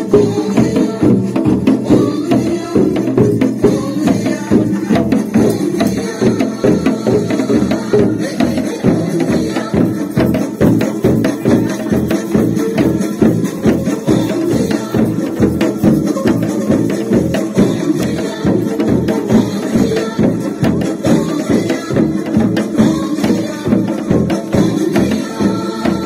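Upbeat square-dance music with a steady, even beat and percussion.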